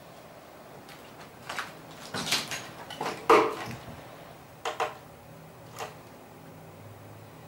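Scattered gunfire: several separate sharp shots at irregular spacing, the loudest about three seconds in, with a faint low rumble near the end.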